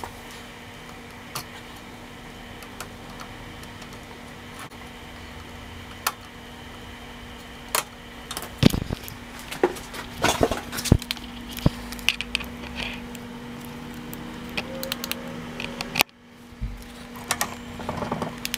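Metal clinks and rattles of a mini bike's roller chain and tools being handled while the chain's master link is fitted, sparse at first and busier about halfway through, over a steady low hum.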